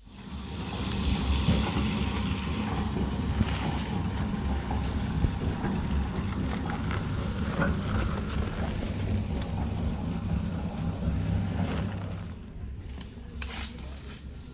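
A vehicle engine running steadily with a low rumble. It starts suddenly and falls away about twelve seconds in.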